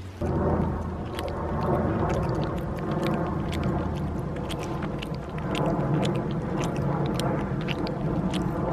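Indian fruit bat (flying fox) chomping and chewing fruit: a run of quick, irregular wet smacking clicks over a steady lower mouth sound.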